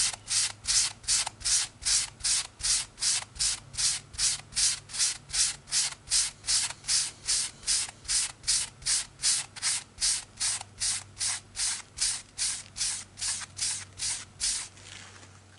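Mr. Clean Magic Eraser sponge rubbed rapidly back and forth over a comic book's paper cover to scrub off dirt smudges. It makes an even, rhythmic scrubbing of about three strokes a second, which stops near the end.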